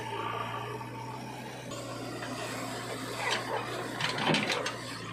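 A backhoe loader's diesel engine runs steadily while a bucketful of soil is tipped into a tractor trolley, with the clods thudding and clattering onto the load about three to four and a half seconds in.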